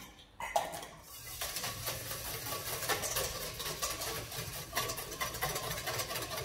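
Wire balloon whisk beating egg yolk, vinegar and Dijon mustard in a stainless steel bowl. It makes a rapid, steady scraping and clinking of metal on metal, starting about a second and a half in.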